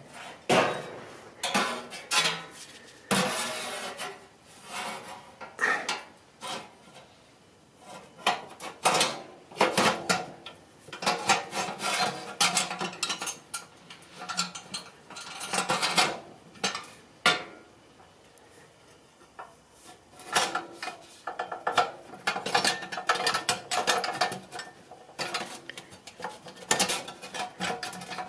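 Sheet-metal stovepipe and damper parts clinking, scraping and rattling in irregular bursts as the damper rod is worked through the pipe, with a quieter spell about two-thirds of the way through.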